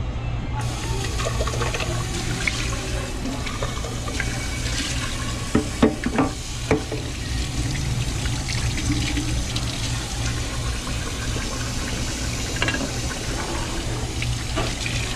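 Tap water running into a small metal sink as hands are washed under the stream; the water comes on just after the start. A few sharp knocks about six seconds in, over a steady low hum.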